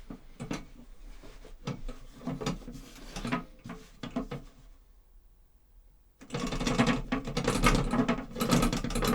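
Foley props worked by hand to make the sound of a rail wagon being pulled and pushed. Irregular mechanical knocks and clacks come first, then a short pause, then a louder, dense, continuous rattling clatter starting about six seconds in.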